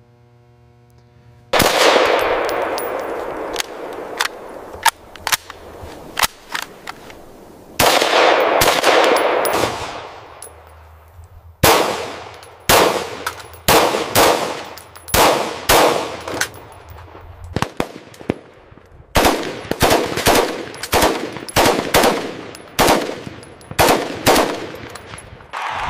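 AR-15-style rifle gunfire with echoing tails. About a second and a half in comes a rapid volley, and a second follows near the 8-second mark. From about halfway on there is a steady string of single shots, one to two a second.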